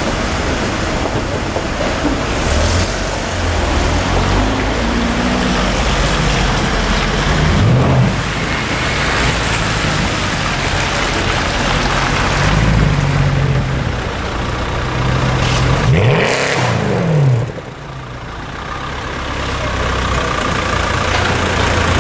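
Mercedes-Benz C63 AMG's V8 engine revving in a few short rises and falls as it pulls away, over steady city traffic noise.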